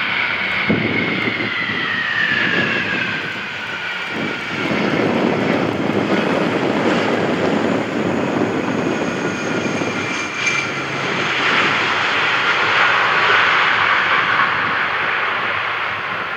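McDonnell Douglas MD-11 trijet's engines on landing. A loud jet rush with a whine that falls in pitch over the first few seconds as it passes low to touch down, then a stronger rushing swell from about eleven seconds in as it rolls out on the runway, typical of reverse thrust.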